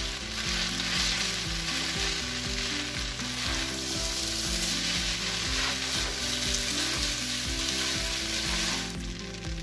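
Chow mein noodles with vegetables and scrambled egg sizzling in a frying pan while being tossed and stirred with a utensil, a steady frying hiss throughout.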